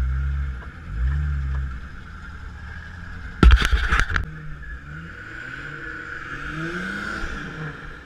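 Off-road Jeep engine revving under load in low gear while crawling over rocks, its pitch climbing in short pushes. A cluster of loud clattering knocks comes about three and a half seconds in.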